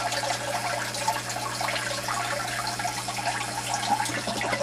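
Water gurgling and draining through a homemade 2-inch PVC bell siphon in an aquaponics grow bed, near the end of its drain cycle. A steady low hum runs underneath.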